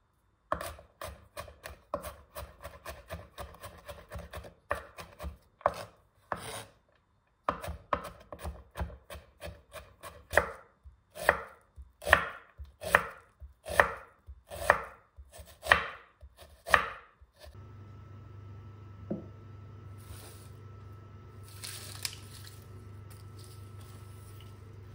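Chef's knife chopping garlic cloves and then a red onion on a wooden cutting board. The quick, light strokes give way to slower, louder chops about one a second. Near the end the chopping stops, leaving a steady low hum with a few faint knocks.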